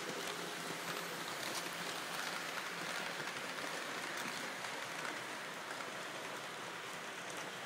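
Märklin model train, an E03 electric locomotive hauling TEE coaches, rolling along metal track: a steady rushing noise of wheels and motor that swells for a couple of seconds as the train passes close, then eases as it runs off around the curve.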